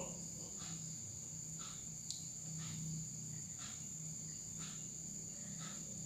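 Background insects, crickets: a steady high-pitched trill with a softer chirp repeating about once a second, over a low hum, and one faint click about two seconds in.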